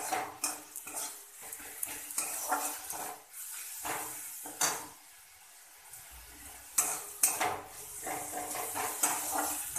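Long metal spatula scraping and clinking against a metal kadai as onions and ground spices are stirred and fried in oil, in irregular strokes over a soft sizzle.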